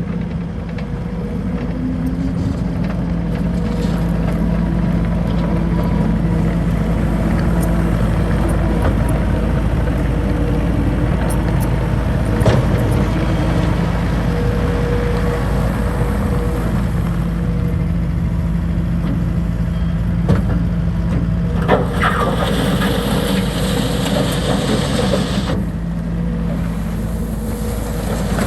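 Kubota SVL75-2 compact track loader's diesel engine running steadily, picking up speed slightly at the start, with a few sharp knocks. Near the end, a harsh hissing rattle lasts about three seconds over the engine.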